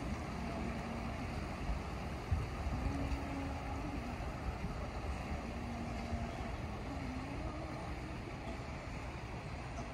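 Wind rushing across the microphone over the low hum of motor cruisers' engines, the hum stepping up in pitch a couple of times.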